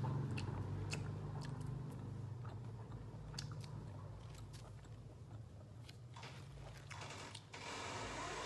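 Small irregular clicks and crackles of a boiled duck-egg (balut) shell being cracked and picked off by fingertips. A low hum fades out over the first few seconds, and a steady hiss comes in near the end.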